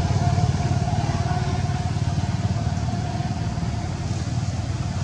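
An engine running steadily nearby, a low pulsing rumble with a faint steady whine above it that fades out a couple of seconds in.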